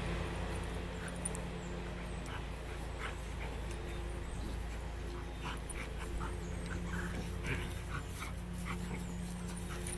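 Two dogs play-wrestling, with scattered short whimpers and yips and some panting over a steady low background hum.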